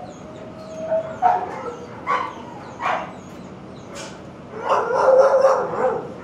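Shelter dogs yipping and whining in short separate calls, then a burst of overlapping barking about four and a half seconds in that lasts about a second and a half.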